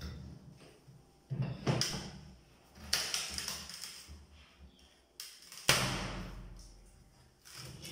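Claw hammer prying and knocking at an old wooden kitchen cupboard frame as it is torn out: a series of sharp wooden knocks and cracks, the loudest a little past two-thirds of the way through.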